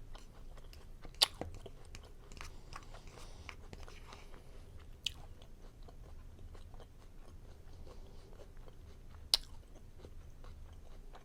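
A person chewing food close to the microphone, with wet mouth sounds and small clicks throughout. Sharp clicks come about a second in, around five seconds, and near the end, the last one the loudest.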